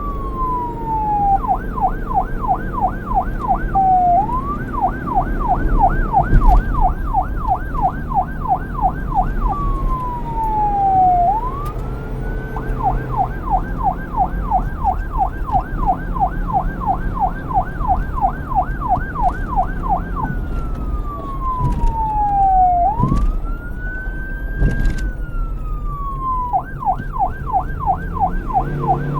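Electronic police siren switching between a fast yelp, rising and falling about three to four times a second, and slower wail sweeps that fall in pitch over about two seconds before climbing back up. A steady low rumble runs underneath.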